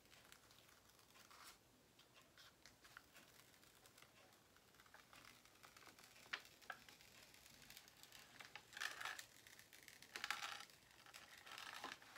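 Faint crinkling and rustling of a diamond painting canvas's plastic cover film and paper being handled and smoothed flat, with a few louder crinkles about nine and ten seconds in.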